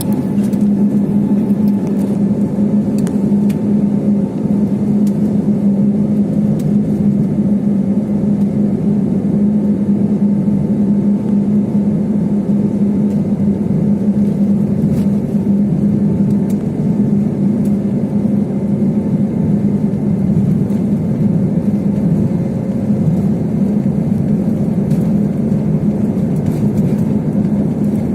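Airliner cabin noise in flight: a steady engine and airflow drone with a constant low hum running underneath.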